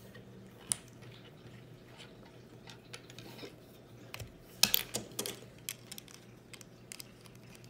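Plastic Lego bricks clicking and clacking as they are handled and pressed together, with a cluster of louder clicks a little past halfway.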